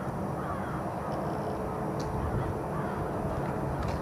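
KLM McDonnell Douglas MD-11's three jet engines rumbling steadily at low power as the trijet taxis. A bird calls a few times over the engine noise.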